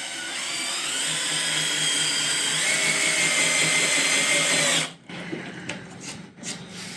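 Drill with a number 2 square bit driving a self-drilling decking screw into a wooden pillar: the motor whines steadily for about five seconds, then stops suddenly. A few light knocks follow.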